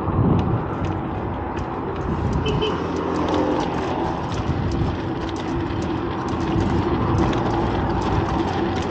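Steady city road traffic noise: a continuous rumble of motor vehicles with small scattered ticks.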